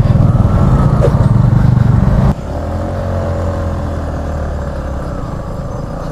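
Motorcycle engine running while riding a rough dirt road, under a heavy low rumble on the microphone. About two seconds in the rumble cuts off abruptly, leaving a quieter, steadier engine hum.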